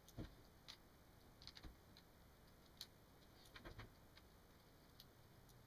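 Faint, irregular light clicks and ticks of a small screwdriver and tiny screws being handled while the screen bezel screws of a laptop are taken out.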